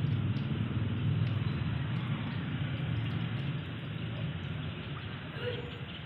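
River water flowing and gurgling, a steady rushing with a strong low rumble that eases slightly about halfway through.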